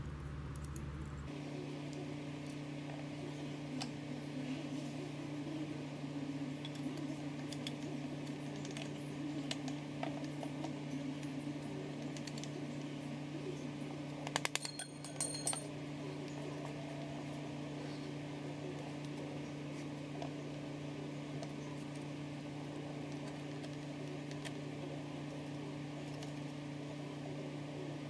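Metal engine parts clinking and knocking as a piston and connecting rod are driven up out of a Land Rover 300Tdi cylinder block, with a quick run of about five sharp knocks about halfway. A steady low hum runs underneath.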